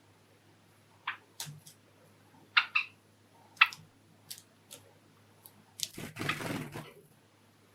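Java sparrows giving short, sharp chip calls, about eight scattered over several seconds. A brief rustling burst lasting about half a second comes near the end.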